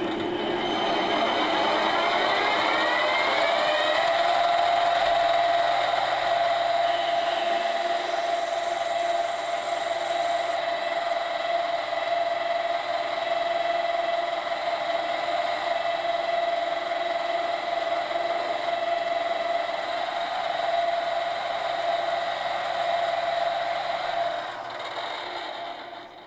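Metal lathe starting up, its motor whine rising over the first few seconds, then running steadily while a 6 mm stub drill in the tailstock chuck bores into the end of a spinning cast-iron bar. The whine dies away as the lathe stops near the end.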